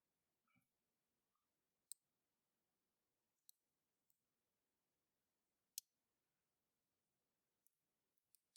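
Near silence broken by a few sharp, faint clicks a second or two apart, with a couple of fainter ones near the end: a lock pick working the pin tumblers of a challenge lock while the picker searches for the last pin.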